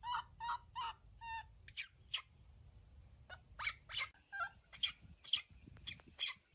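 Short pitched animal calls repeated about three times a second, giving way after about a second and a half to a string of sharper, higher squeaks and chirps.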